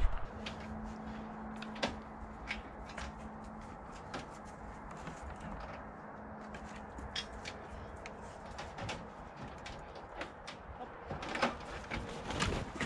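Scattered light knocks and clicks, with a denser run of louder knocks about eleven seconds in. A faint steady hum sounds for the first two-thirds.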